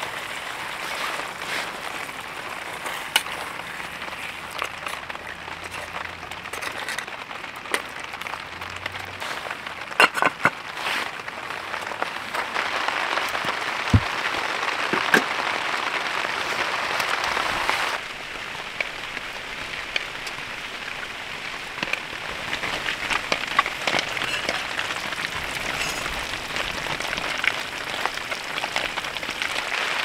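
Rain pattering steadily on the hot tent's fabric, with scattered sharp clicks and a few louder knocks around the middle. The patter grows louder for a few seconds and drops abruptly about two-thirds of the way through.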